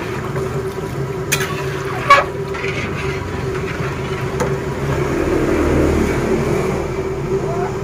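Battered chicken frying in hot oil in a large aluminium wok, a steady sizzle as the oil foams, with two sharp clicks of the metal skimmer against the pan in the first couple of seconds. A steady low hum runs underneath and swells around six seconds in.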